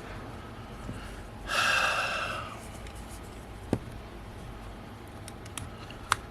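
A person's loud, breathy exhale lasting about a second, then two sharp small clicks, one in the middle and one near the end.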